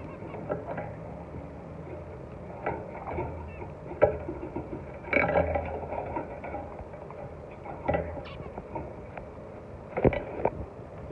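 Irregular light taps and scuffles from zebra finches moving about their cage, over a steady low hum.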